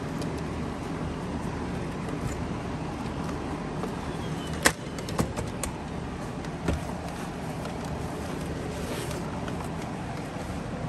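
Steady low background hum with a few light knocks near the middle, from the plastic vacuum floor head being handled on a workbench.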